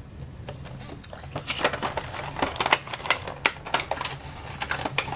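A cardboard Funko Pop box with a clear plastic window being handled and opened: irregular crackles, clicks and taps of cardboard and plastic.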